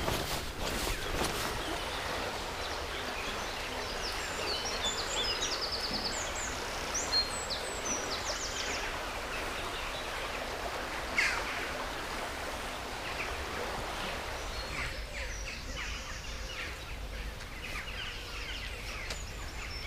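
Small birds chirping and trilling in quick runs, with one louder falling call about eleven seconds in, over a steady low rumble of outdoor background noise.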